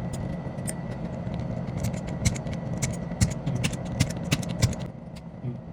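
A quick irregular run of sharp clicks and taps over a steady low hum, stopping about five seconds in.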